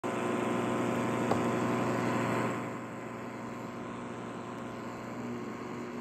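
Static from a Tivoli Audio iPAL portable radio's speaker, a steady hiss with a buzzing hum under it. It drops in level about two and a half seconds in.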